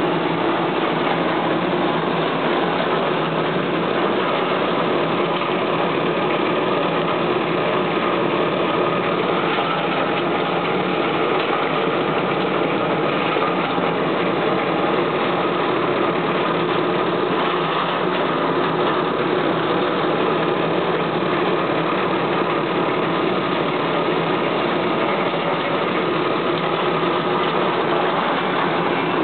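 Tamarind dehuller running steadily as tamarind pods are fed through it, a constant, unchanging machine noise.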